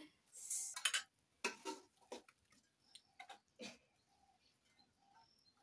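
Scattered clicks, taps and scrapes of a spoon against an aluminium cooking pot and bowls as food is dished out, with faint short chirps of birds in the second half.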